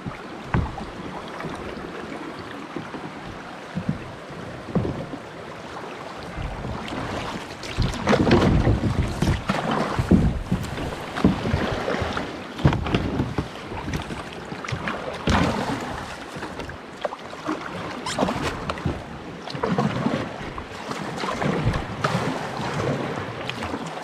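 Kayak paddle strokes splashing in swift, fast-flowing river water, coming roughly once a second and heavier from about a third of the way in, with wind buffeting the microphone.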